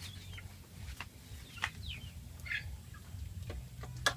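Birds calling: a few short, high chirps that fall in pitch, scattered over a few seconds.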